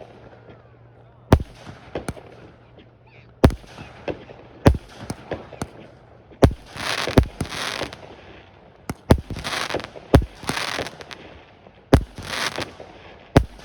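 Fireworks exploding: a string of sharp bangs a second or two apart, several followed by a second or so of dense crackling.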